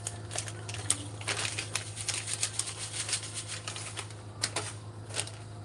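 Plastic bag crinkling and crackling in the hands as its contents are shaken out into a bowl: a quick, irregular run of crackles. A steady low hum runs underneath.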